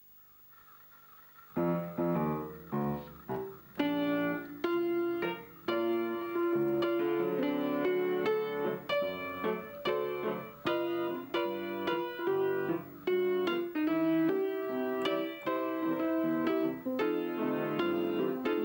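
Piano music, beginning about a second and a half in with a run of notes and carrying on as a steady flow of chords and melody.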